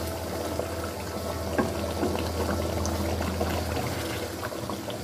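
Thick chicken curry gravy simmering in the pan as a wooden spatula stirs through it: wet bubbling with scattered small clicks, over a low steady hum.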